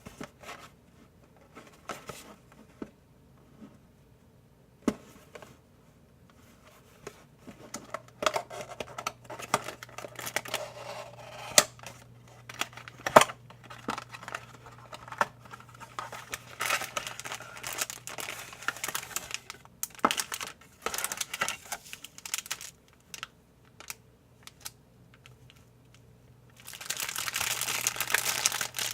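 Plastic and paper candy-kit packaging being handled, torn and crinkled, with scattered clicks and taps. Near the end it turns into steady, dense crinkling.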